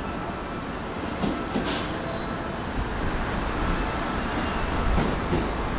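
Hanshin Railway electric train at a station platform, with a short hiss about a second and a half in and a low rumble building in the second half as the train moves.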